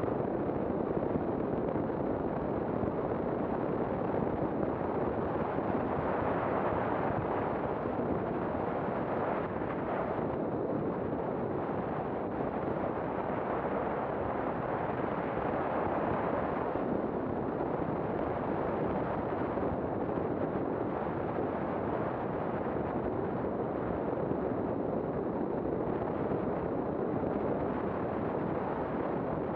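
Steady rush of wind and road noise from a motorcycle riding at speed, picked up by a bike-mounted camera's microphone, with no distinct engine note standing out.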